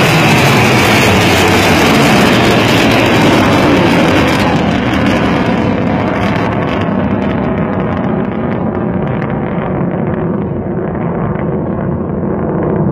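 Loud, steady noise of a Shaheen-III missile's solid-fuel rocket motor in flight. From about four seconds in it grows duller and a little quieter as the missile climbs away.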